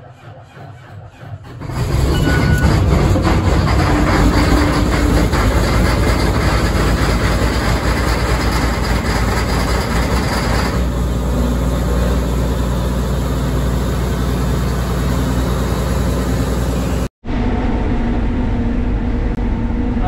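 Combine harvester's diesel engine starting about two seconds in, then running loud and steady. After a brief dropout near the end, the steady drone of the combine heard from inside the cab while harvesting corn.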